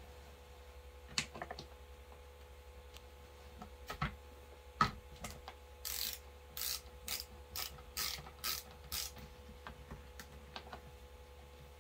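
Hand ratchet driving a screw into an office chair's plastic armrest. A few single clicks come first, then a run of about eight ratchet strokes, roughly two a second, in the middle.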